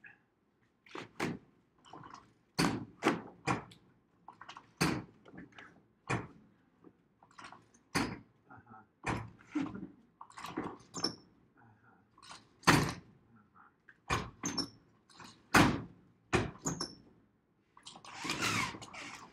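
A run of irregular knocks and clunks, about one or two a second, from equipment being handled. A longer scraping rush comes near the end.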